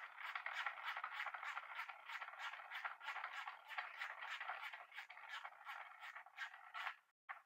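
Rapid, regular clicking with a scratchy scraping sound, about four clicks a second, broken by a brief gap near the end.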